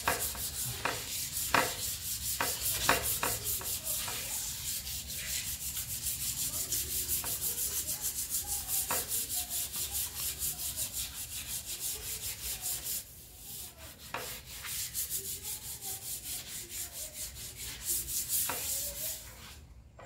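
Hand wet-sanding of a steel skid plate with soapy water: sandpaper rubbed over the wet metal in quick back-and-forth strokes, with a few sharp knocks in the first three seconds and a short lull about two-thirds through. The soap is there to help degrease the steel while it is sanded.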